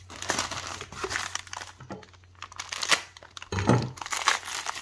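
Brown kraft packing paper rustling and crumpling as hands dig a paper-wrapped bayonet out of a cardboard box, in irregular handfuls with a short lull about two seconds in.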